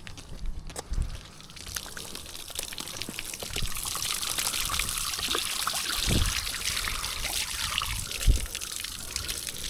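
Water spraying hard onto concrete from a pressure washer while the driveway is rinsed. The hiss builds about three seconds in and stops near the end, with a couple of dull thumps along the way.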